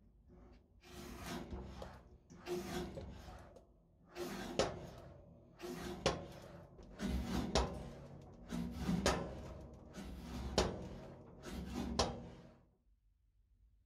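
Freshly restored Morso mitre guillotine worked stroke after stroke, its linkage and blades moving through eight strokes about every one and a half seconds. Each stroke is a rising rasp that ends in a sharp metallic click. The strokes stop shortly before the end.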